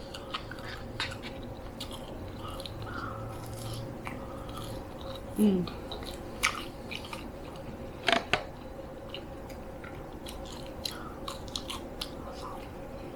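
A person chewing McDonald's French fries close to the microphone, with soft mouth smacks and clicks at irregular intervals over a faint steady hum. A brief falling "mm" is heard about five and a half seconds in.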